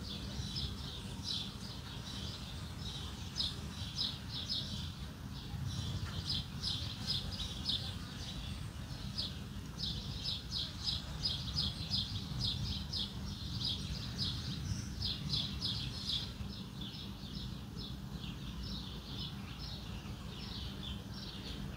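Small birds chirping over and over in quick short notes, over a steady low rumble of background hum.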